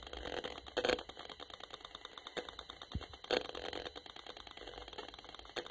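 Safe and Sound Pro RF meter's speaker giving out rapid, steady clicking as it sounds out pulsed microwave signals, with louder crackling bursts about a second in and again after three seconds. The owner puts the signals down to a cell phone, something Bluetooth, or maybe a printer in the home.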